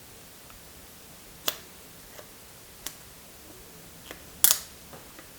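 Scattered sharp clicks and taps of a new GoPro Hero 9 Black action camera being handled, with a short, louder crackling rip about four and a half seconds in as a protective plastic film is peeled off it.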